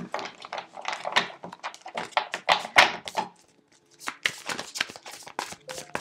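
Tarot deck being shuffled by hand: a quick run of card flicks and slaps, with a short pause a little past halfway before the shuffling resumes.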